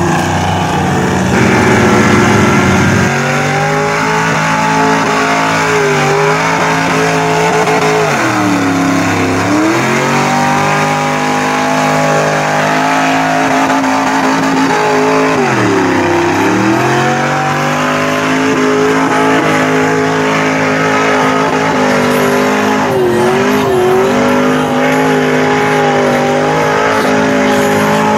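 Lifted mud truck's engine running loud as it churns through a mud pit. Its pitch dips and climbs back three times as the revs fall and rise again.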